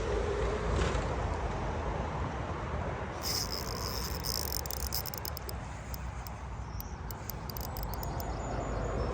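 Fishing reel clicking and whirring in fast irregular ticks, starting about three seconds in, over a steady rushing background.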